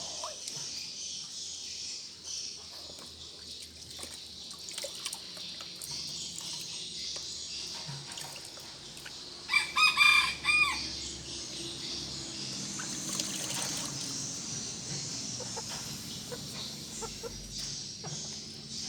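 A red junglefowl rooster crowing once, a short call of about a second, about ten seconds in, over a steady high-pitched hiss.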